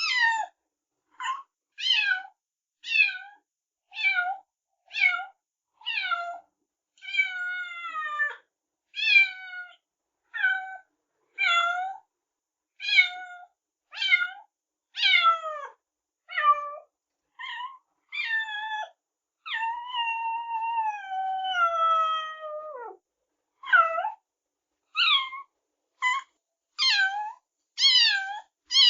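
A cat meowing over and over, about one short meow a second, each call falling in pitch. About twenty seconds in there is one longer, drawn-out meow that slides down.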